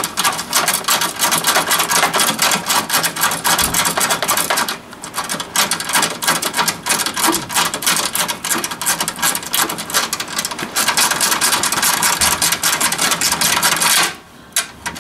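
Hand ratchet wrench clicking rapidly as it is worked back and forth to run down a bolt. There is a brief break about five seconds in, and the clicking stops near the end.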